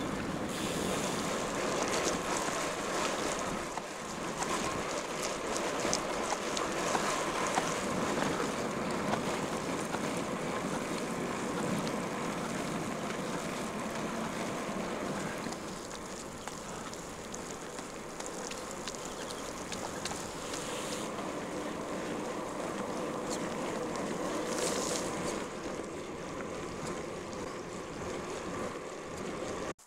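Wind rushing over the microphone with the steady road noise of a loaded touring bicycle being ridden; the rush eases a little about halfway through.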